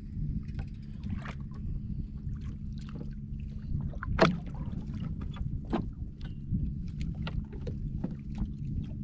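Water lapping and knocking against the hull of a small wooden fishing boat over a steady low rumble, with scattered short knocks and one sharp louder knock about four seconds in.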